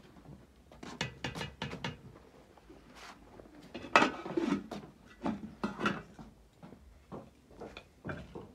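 Pots and dishes clattering as they are handled: a quick run of knocks and clacks, then a louder knock about four seconds in, and a few more after it.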